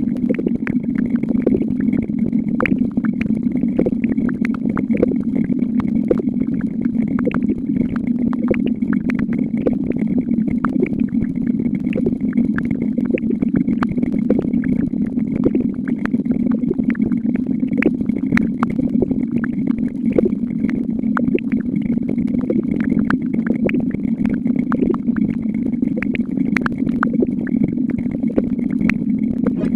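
A continuous stream of synthetic counting sound effects: a steady low hum with a faint high tone, overlaid by many sharp, irregular clicks, several a second.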